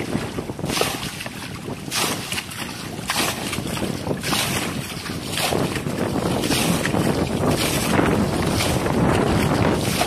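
A plastic bucket scooping muddy water and flinging it out, splashing about once a second, as a pool is bailed out by hand. Wind buffets the microphone throughout.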